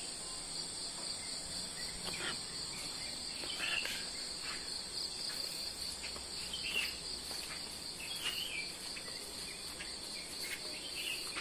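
Crickets trilling steadily in an evening insect chorus, with short chirps every second or two on top.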